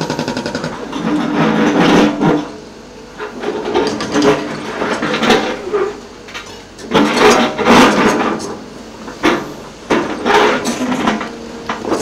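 Excavator working on track demolition: about four bursts of heavy clanking and scraping, a few seconds apart.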